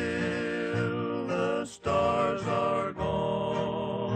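Background music: a song with a singing voice over sustained instrumental tones.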